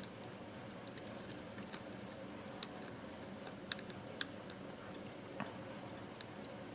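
Faint, sharp clicks of a lock pick working the pins of a Bearsback challenge lock under light tension, a handful of scattered ticks over a low steady background hum.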